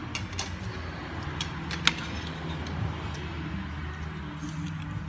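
Cutlery clicking against plates and bowls at the table, with one sharper clink about two seconds in, over a steady low background hum.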